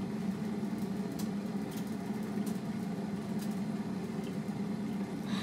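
Large pot of water heating on the stove at a boil, giving a steady low rumbling hum with a few faint ticks.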